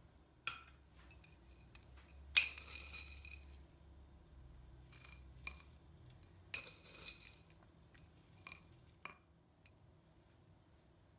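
Kitchen tableware being handled: light clinks and taps of glass and dishes, with three short rattling bursts of about a second each, the first the loudest.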